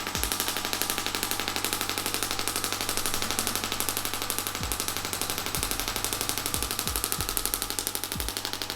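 Shockwave therapy applicator firing a rapid, unbroken stream of sharp clicking pulses into the body during treatment.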